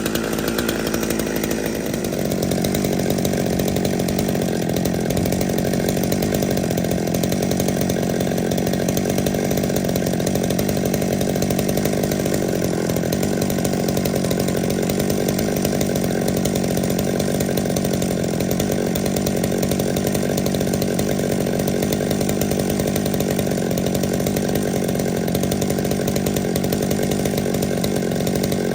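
Holzfforma G111 two-stroke chainsaw running: its speed picks up about two seconds in and then holds steady.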